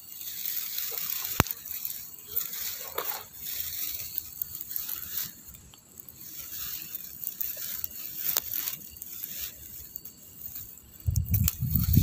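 Rustling of dry grass and brush, moved by feet and hands, with two sharp clicks. Near the end comes a louder low rumble of handling noise as a hand pushes into the grass.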